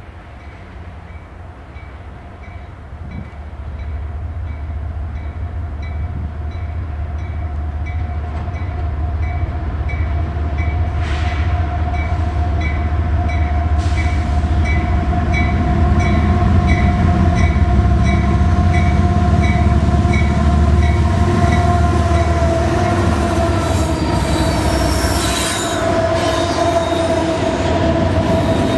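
Union Pacific double-stack intermodal freight train approaching and passing at speed: a deep rumble that grows steadily louder over the first fifteen seconds or so, then the container cars rolling by, with steady high-pitched tones riding over it. A bell rings evenly about twice a second during the approach until the train noise covers it.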